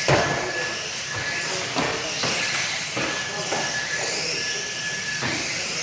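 Small electric radio-controlled saloon cars racing on carpet: motors whining up and down in pitch over a steady hiss, with a few short knocks of cars hitting each other or the barriers and a thin high tone that comes and goes.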